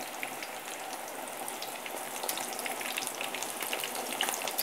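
Eggplant slices frying in hot sunflower oil in a nonstick pan: a steady sizzle with scattered crackles and spits as the slices are turned over with tongs.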